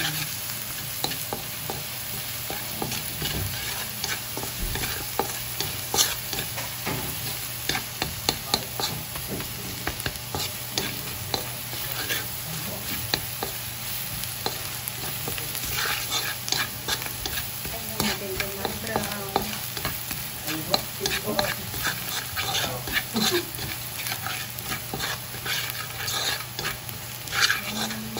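Minced garlic sizzling in melted butter in a nonstick pan, with a wooden spatula scraping and tapping against the pan as it is stirred.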